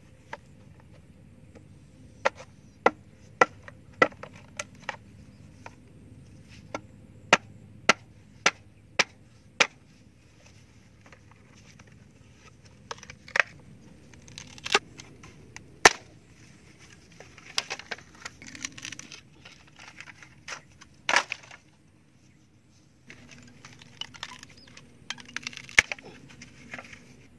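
Sharp knocks of a hand blade chopping bamboo, about two a second for several seconds, then scattered strikes. Near the end, clusters of cracking and scraping as bamboo poles are split lengthwise.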